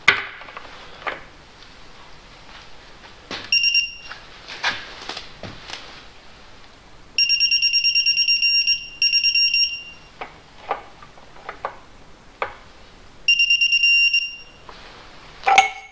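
Digital torque wrench beeping a rapid, high-pitched pulsed tone in four stretches, the longest about a second and a half, as it is pulled to its 70 Nm setting on the oil filter housing nut: the signal that the set torque is reached. Scattered clicks and knocks of the socket and wrench fall between the beeps.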